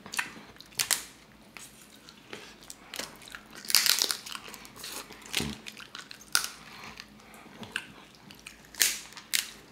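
Close-up eating sounds: crab leg shells cracking and crunching, with biting, chewing and wet mouth sounds. A run of irregular sharp cracks, the loudest crunch about four seconds in.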